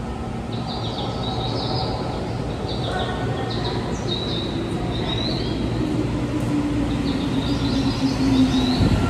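Tokyu 3000 series electric train (set 3104F, Toshiba IGBT VVVF inverter) running in and braking. Its inverter whine appears in the second half and falls in pitch as the train slows. Short high squeals come and go over a steady rumble that grows louder.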